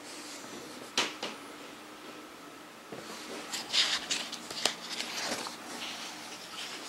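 Pages of a large, heavy hardcover book being turned: a sharp paper snap about a second in, then a run of paper rustling and crackling from about three seconds on.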